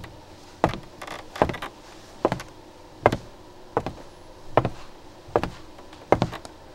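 Slow, even footsteps on a hard floor, one step about every 0.8 seconds.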